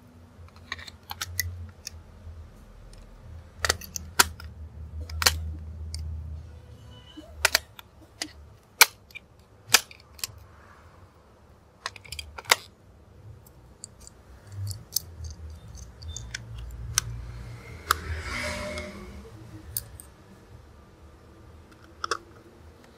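Irregular sharp clicks and knocks of hard plastic and metal as batteries are fitted into a plastic toy's battery compartment and its cover is screwed on with a screwdriver. A short scraping hiss comes about three-quarters of the way through.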